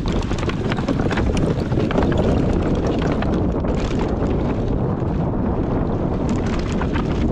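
Wind buffeting the microphone on a fast mountain-bike descent, over dense clicks and rattles from the bike rolling over rough dirt trail.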